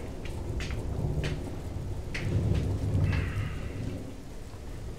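Steady rain with low rolling thunder that swells about two to three seconds in, with scattered sharp ticks. A brief creak about three seconds in.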